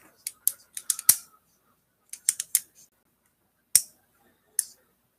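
Sharp clicks and taps, a quick run of about half a dozen in the first second, a few more around two seconds in, then three single clicks spaced out toward the end.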